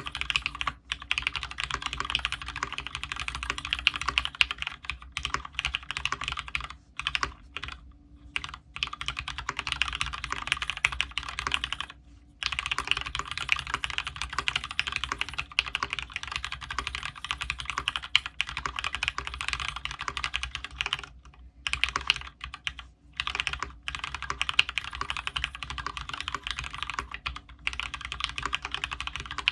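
Fast continuous typing on a Space65 custom keyboard with lubed Cherry Retooled Black linear switches, PBT keycaps and an aluminium plate. The keystrokes come in rapid runs broken by brief pauses, a little longer about twelve seconds in and again near twenty-one seconds.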